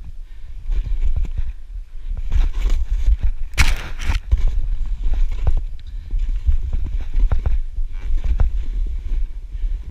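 Fast descent through deep powder snow: a dense, uneven run of thuds and crunches as it ploughs through, with low rumbling buffeting on the microphone and a loud spray of snow about three and a half seconds in.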